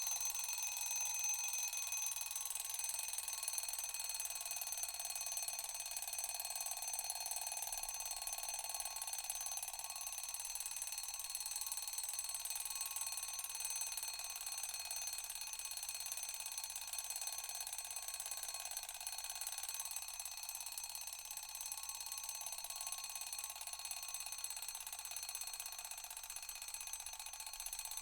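Mechanical alarm clock bell ringing nonstop, slowly getting a little quieter.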